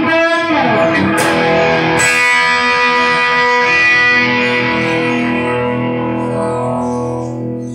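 Distorted electric guitar played through a Blackstar HT5 Metal valve amp and a Celestion Seventy 80 speaker. Quick single notes with a falling pitch glide give way to a chord struck about two seconds in, which is left to ring and slowly fades.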